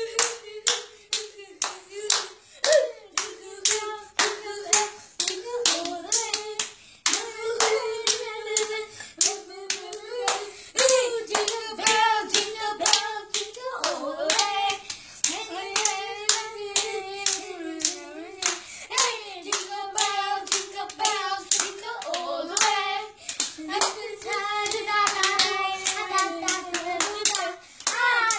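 Children singing a jingle in long held phrases while clapping their hands in a steady rhythm.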